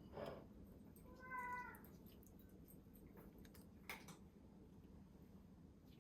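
A domestic cat gives one short meow about a second in. A faint tap follows a few seconds later.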